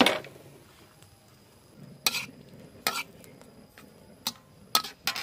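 A heavy knock as a steel wok is set down on a wooden bench. Then a metal spatula scrapes and clinks against the wok in a few separate sharp strokes while fried noodles are stirred.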